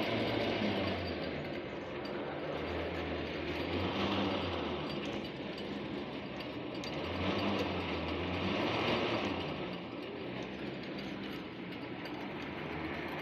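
Side-boring rig working inside a dug well, its motor and gearing running with a steady mechanical clatter. A low hum swells and fades about every four seconds.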